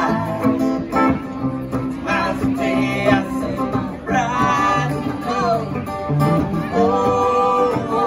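Live country band playing: strummed acoustic guitar, with a fiddle carrying gliding and held melody lines over it.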